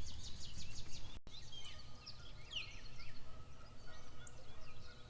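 Several birds calling at once: short high chirps and quick trills, overlapping and irregular, over a low steady rumble.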